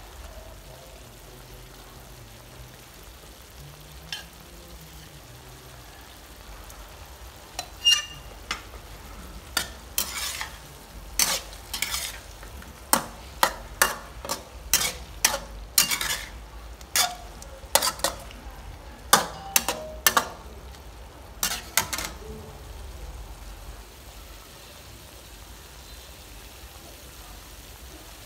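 A metal spatula scrapes and knocks against a stainless steel wok as beef and okra are stir-fried, about a dozen strokes through the middle stretch, over a steady low frying sizzle.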